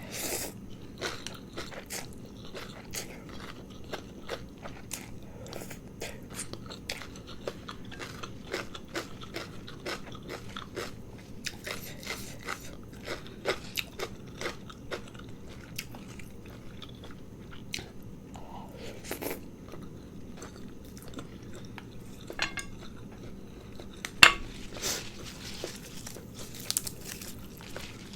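Close-miked chewing of a spicy noodle dish with fresh vegetables and peanuts, many short crisp crunches and bites, with one louder crunch near the end.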